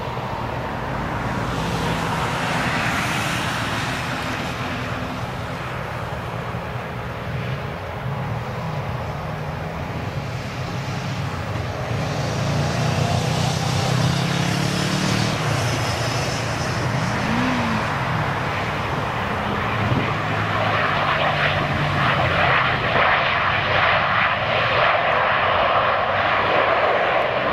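Dornier 328 twin turboprop landing: a steady drone of engines and propellers that grows louder from about twelve seconds in, around the touchdown. From about twenty seconds in a louder, brighter roar takes over as the aircraft rolls out along the runway.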